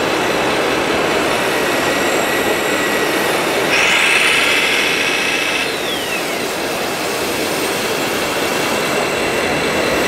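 A radio-controlled 1:8 scale Volvo L350F wheel loader model works while loading soil onto a trailer, with a steady mechanical running noise. About four seconds in, a higher whine sounds for about two seconds and ends in a falling tone as the bucket is raised and tipped.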